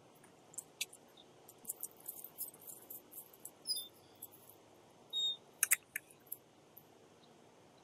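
Scattered light clicks and a couple of short high squeaks, then a glass storm door swinging shut: a brief squeak and a sharp double click of the latch about five and a half seconds in.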